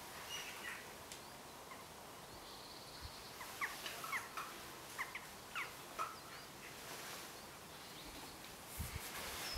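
Wild birds calling: a scatter of short, sharp chirping notes through the middle few seconds over a faint, even outdoor hiss, with a couple of dull low thumps near the end.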